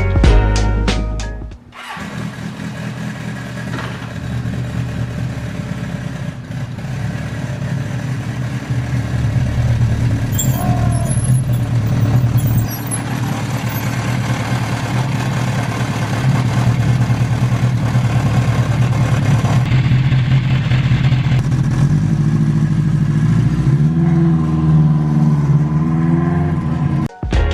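Honda CB850 motorcycle engine running steadily, then revved with its pitch rising and falling several times near the end. Background music plays briefly at the start and returns at the very end.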